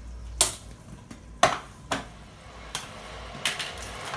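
About five sharp knocks and clinks as a glass bowl is set down on a wooden chopping board and things are moved on the counter. The steady hiss of an electric kettle heating water builds up behind them from about halfway in.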